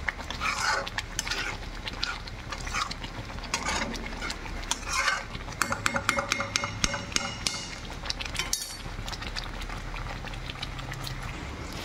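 A plastic slotted spatula stirring thick curry gravy in a metal kadai, scraping and clicking against the pan, with a quick run of clicks around the middle.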